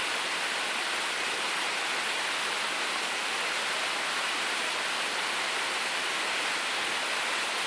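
Steady rushing of river water, an even hiss that neither rises nor falls, with no separate strikes in it.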